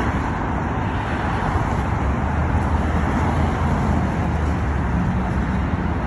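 Steady road traffic noise from cars driving through a busy signalized intersection, a continuous rumble with no single event standing out.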